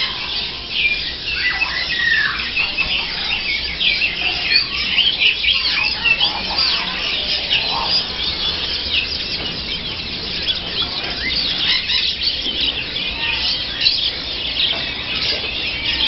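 A dense chorus of many caged songbirds chirping and tweeting all at once, steady and high-pitched, with a few lower, falling calls standing out from the mass.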